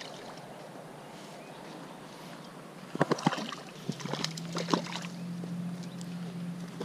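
A steady outdoor hiss, then a cluster of sharp clicks and knocks about three seconds in and again around five seconds, from hands handling gear close to the microphone. A steady low hum sets in about four seconds in.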